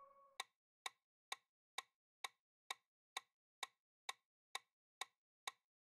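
Quiz countdown timer ticking: a clock-like tick sound effect, short sharp ticks evenly spaced at about two a second, starting about half a second in.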